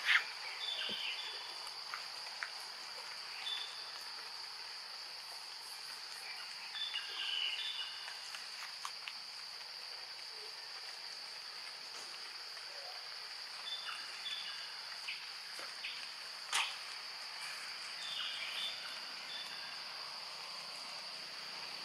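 Steady, high-pitched drone of insects in the trees. A few short clusters of chirps sound over it, and there is a sharp click past the middle.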